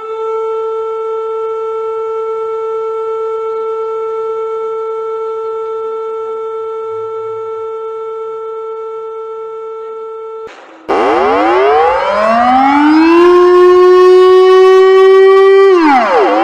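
Civil-defence sirens: one sounds a single steady tone that cuts off about ten seconds in. Another then winds up, holds its pitch, drops sharply near the end and winds up again in a wail.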